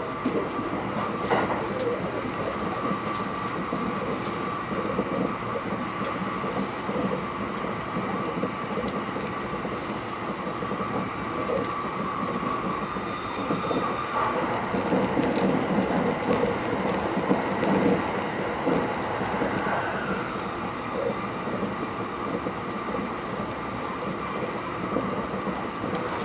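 Interior running noise of the Thunderbird limited express electric train at high speed: a steady rolling rumble and rush of wheels on rail heard inside the carriage, with a faint whine that bends up in pitch near the end.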